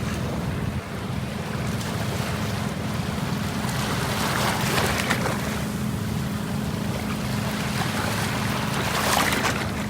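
Sea water washing in swells about every four to five seconds over a steady low rumble.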